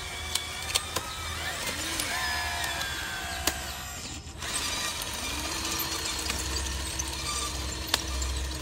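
Electric motors and gearboxes of radio-controlled model construction machines whining as they start, stop and change speed, with scattered sharp clicks and a steady low hum underneath.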